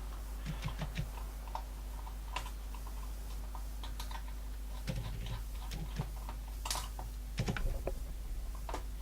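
Irregular light clicks and taps of small metal tools and screws on a brass pocket-watch movement during dismantling, with a couple of duller knocks about five and seven seconds in.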